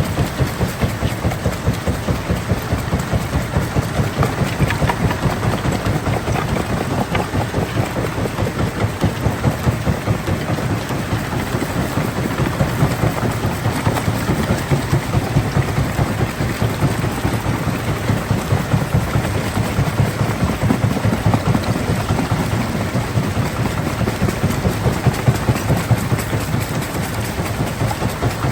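Heavy rock-crushing machinery running steadily: a continuous loud engine-like rumble with a fast, even pulsing throb.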